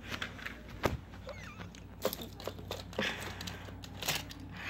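Handling noise: scattered light clicks and knocks of plastic toy trains and track being moved about on carpet, over a faint low steady hum.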